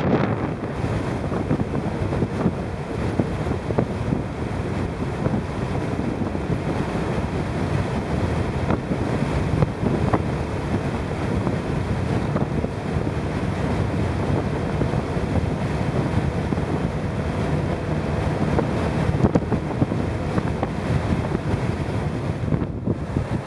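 Strong, gusty wind battering the microphone: a loud, steady rushing roar with irregular buffeting spikes.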